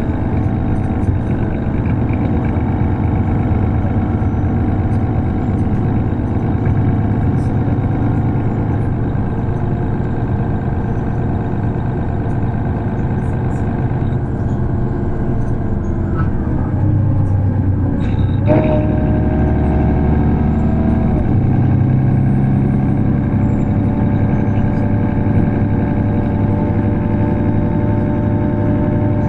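Mercedes-Benz Citaro city bus with its OM906hLA six-cylinder diesel and ZF automatic gearbox, heard from on board while running. The engine note shifts from about fourteen seconds in, and a sharp click comes about eighteen seconds in, followed by a new steady tone.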